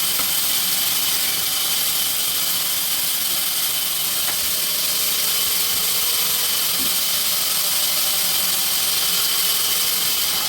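Sawmill machinery running steadily, a constant high-pitched whine and hiss.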